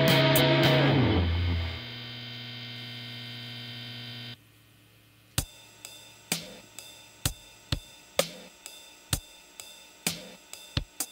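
Music from a dream-pop album: one song ends on a held chord that drops to a quieter sustained tone about two seconds in and stops about four seconds in. After a second of near silence, the next track opens about five seconds in with sparse drum hits, roughly two a second.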